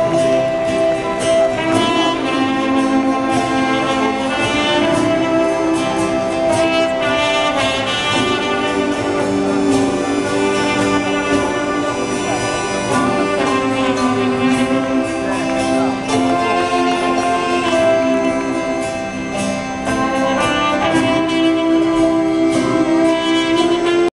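Live band playing a slow tune in an arena, with sustained melody notes that may be brass; heard from the audience.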